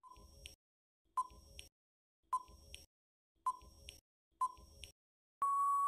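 Quiz countdown-timer sound effect: five short electronic pings about a second apart, then a long steady beep near the end signalling that time is up.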